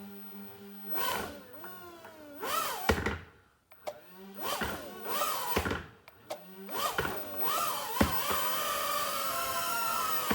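GT3 Pro toy drone's motors spinning up in three throttle bursts, each with a whine that sweeps up in pitch and wavers. The third burst, from about seven seconds in, holds as a steady whine.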